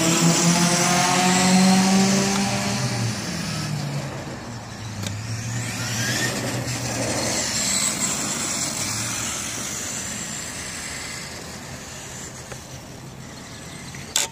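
Traxxas E-Revo RC truck's brushed electric motor and geartrain whining as it accelerates, with tyre hiss on asphalt. The whine rises in pitch over the first few seconds, then fades steadily as the truck drives away; a sharp click just before the end.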